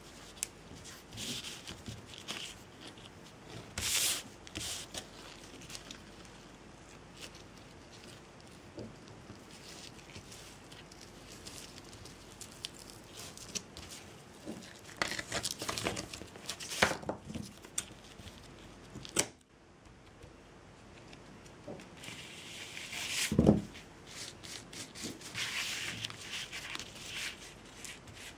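Jute twine and hands rustling and scraping at intervals as the cord is handled and pressed onto a glued pattern, with one louder bump about three quarters of the way in.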